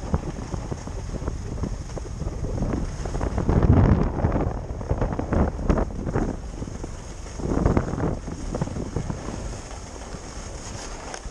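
Wind rushing over an action camera's microphone while skiing downhill, rising into several louder gusts of rushing noise partway through.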